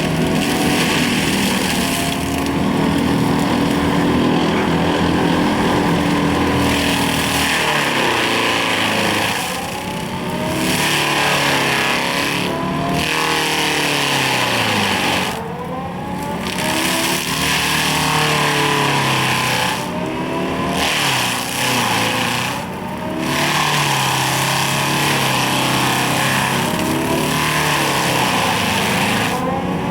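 Excavator engine and the hydraulic drive of a Seppi Star FC mulcher head running under varying load. The pitch sags and recovers several times as the load changes.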